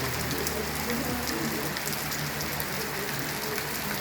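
Rain falling steadily, a dense even hiss scattered with the ticks of single drops hitting surfaces, over a faint low steady hum.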